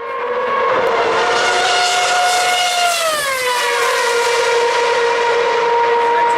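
A loud, steady high-pitched drone with many overtones. It falls in pitch about three seconds in, then holds level.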